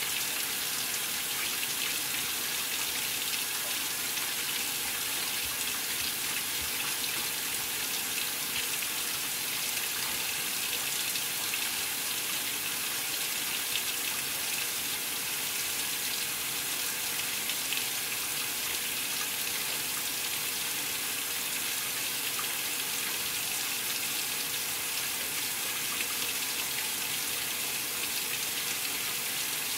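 Maytag Centennial top-load washer filling its tub during the sensing stage of a delicate cycle: a steady, unbroken rush of water pouring in.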